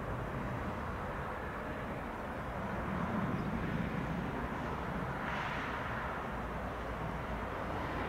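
Distant Airbus A319 airliner's jet engines making a steady rumbling drone as it flies in on approach to land, swelling briefly about five seconds in.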